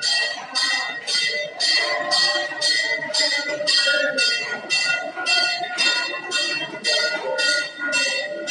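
A temple bell rung over and over in a steady rhythm during aarti, about two to three strokes a second, each stroke ringing on. Devotees' voices singing the aarti hymn can be heard under the bell.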